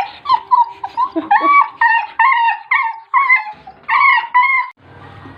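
Dog whining in a quick series of short, high cries, about two a second, which stop shortly before the end.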